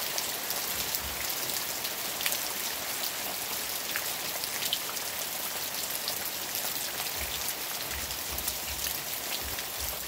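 Steady rain falling on leafy cassava and banana plants and wet earth, an even hiss dotted with many small drop ticks.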